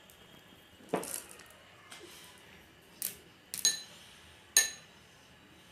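Sharp clinks against a dish, about five in all, the last few ringing briefly, as sugar-coated chocolate candies are put onto the pudding.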